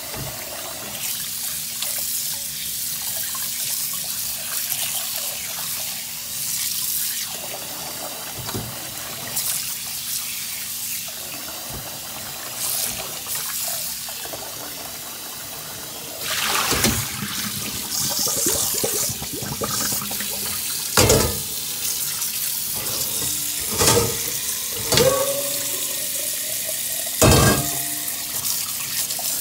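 Tap water running steadily into a metal pot in a kitchen sink as hands rinse the salt off brined fish, with sloshing. A few sharp knocks and splashes in the second half.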